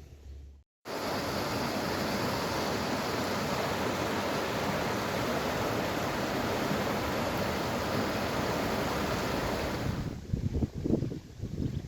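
A steady outdoor rushing noise that starts right after a brief dropout and cuts off abruptly about ten seconds in. It is followed by irregular low bumps.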